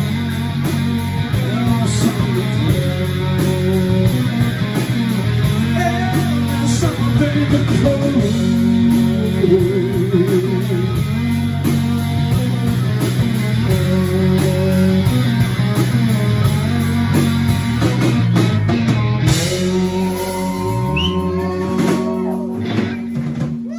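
Live rock band of two electric guitars, bass guitar and drum kit playing the instrumental end of a song. In the last few seconds the playing thins out and the lowest notes drop away.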